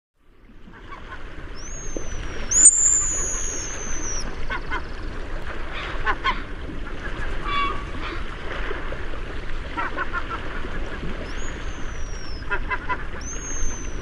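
A mixed flock of gulls, crows and waterfowl calling as they feed together, fading in at the start. There is a constant chatter with clusters of short, rapid calls, and several high, thin whistles that slide downward, a few near the start and two more near the end.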